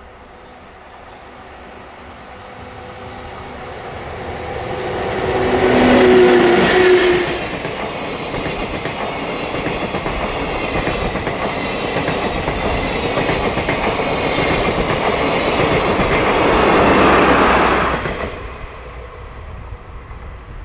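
An EF64-1000 electric locomotive hauling a train of 24-series sleeper coaches passes at speed. The sound builds as the locomotive approaches and is loudest as it goes by about six seconds in. The coaches follow with a steady rumble and clickety-clack of wheels over the rail joints, swelling once more before dropping away as the end of the train passes about eighteen seconds in.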